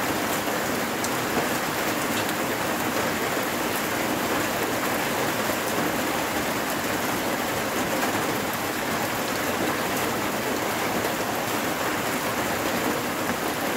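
Heavy rain falling steadily on flooded paddies and standing pond water, an even hiss with scattered drops ticking close by.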